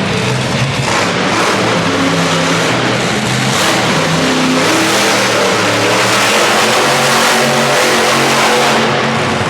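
Monster truck's supercharged V8 engine revving hard, its pitch rising and falling as the throttle is worked.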